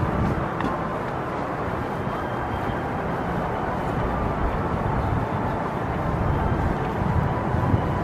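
Steady outdoor background noise with a low rumble and no distinct events.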